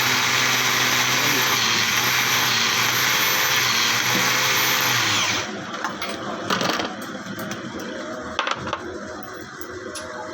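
Motorised valve refacing machine running steadily with a whine and grinding hiss, then switched off about five seconds in and winding down. A few light knocks and clinks follow.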